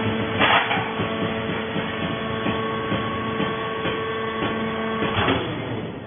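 Vertical hydraulic fibre baler running with a steady hum, with a loud clatter about half a second in and another just after five seconds, after which the hum cuts out.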